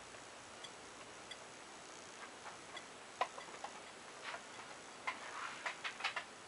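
Faint, irregular clicks and light ticks over a steady low hiss, the sharpest about halfway through and a quick cluster of them near the end.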